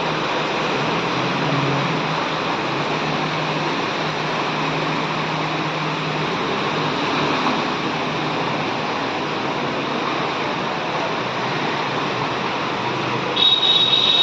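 Steady rushing noise of floodwater. Near the end comes a short, high-pitched tone that is louder than the rush.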